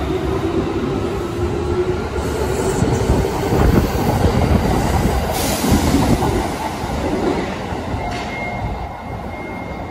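Kintetsu 7020 series subway train pulling out of an underground station, rumbling past with wheels clattering and hissing on the rails. A steady motor whine fades in the first seconds, and the noise dies away after about eight seconds as the last car enters the tunnel.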